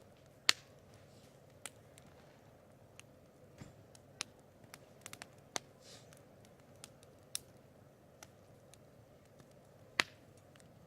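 Wood campfire crackling: faint, irregular sharp pops and snaps, with two louder cracks about half a second in and near the end.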